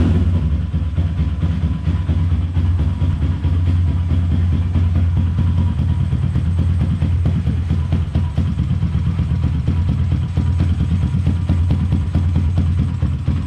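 Modified Rusi Classic 250's air-cooled single-cylinder engine, with high compression and reground cams, idling steadily through an aftermarket SC Project exhaust.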